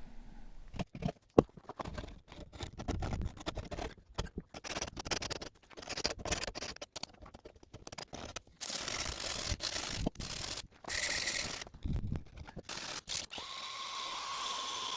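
Bark being scraped and pried off the live edge of a balsam fir slab: irregular scraping and rubbing with clicks and cracks, in short choppy bursts broken by sudden gaps. About a second and a half before the end, a faint steady hum takes over.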